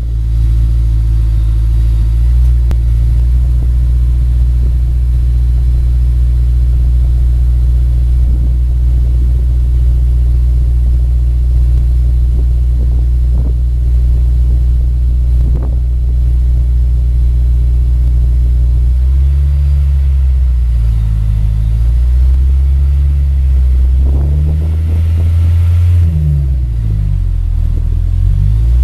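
Honda S2000's inline-four idling steadily through a Ganador Vertex Titan titanium muffler. From about two-thirds of the way in it is given several short throttle blips, the exhaust note rising and dropping back each time.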